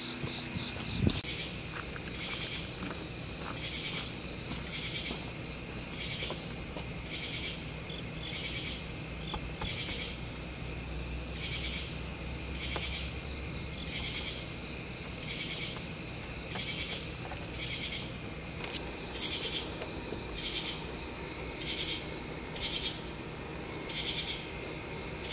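Night insects chorusing: a steady high-pitched cricket trill, with a second insect's rhythmic pulsing call repeating about every two-thirds of a second.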